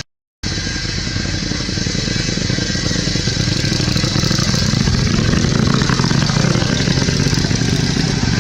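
A steady motor running, with a low rumble and hiss, growing slightly louder, after a brief moment of silence at the start.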